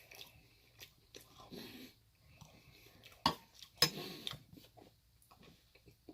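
Close-miked chewing and mouth sounds of someone eating chickpea curry with naan bread. Two sharp clicks stand out a little over three seconds in.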